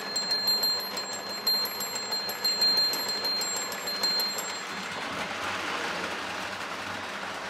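Postwar Lionel O gauge steam locomotive and freight cars running on three-rail tinplate track, the wheels clicking over the rail joints, with a thin high steady tone. About five seconds in the clicking stops and leaves a steadier, duller running sound.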